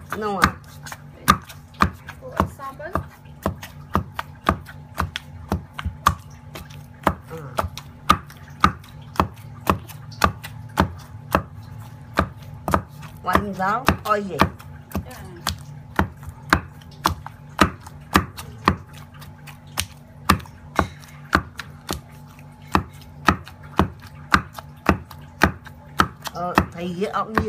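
Wooden pestle pounding fish paste with lemongrass in a stone mortar: a steady run of dull thuds, about two to three strokes a second.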